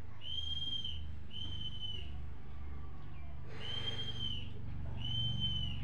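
A high, steady whistled note repeated four times in two pairs, each note under a second long.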